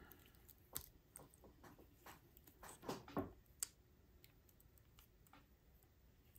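Faint, scattered small clicks and taps of fiddly handwork on an HO scale model steam locomotive's chassis as a wheel is worked into place, with a small cluster of clicks about three seconds in.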